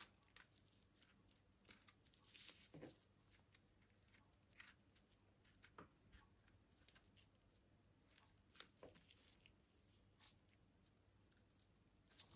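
Faint, scattered small tearing and sticky crackling sounds of fingers peeling the slimy skin off slippery jack (butter bolete) mushroom caps, irregular with a few louder peels.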